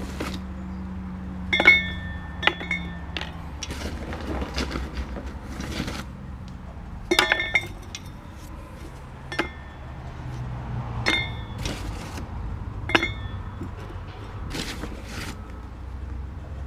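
Barbecue heat-bead briquettes set one by one into a furnace lining, clinking against each other and the lining. The clinks are irregular and sharp, some with a short ring, over a steady low hum.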